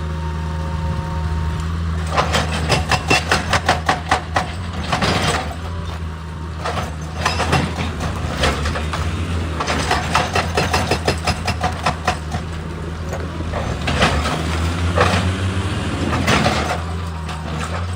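Heavy excavator at work: its diesel engine runs steadily under spells of rapid, rhythmic metallic clattering, about four strokes a second.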